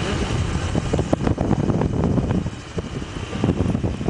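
Motorcycle engine running on the move, with wind noise on the microphone.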